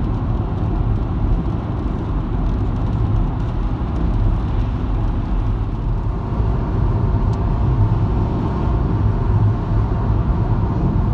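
Steady road noise inside a moving car's cabin: engine and tyres running on a wet road.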